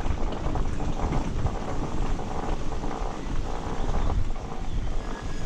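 Off-road motorcycle engine running while riding, with heavy wind noise on the microphone.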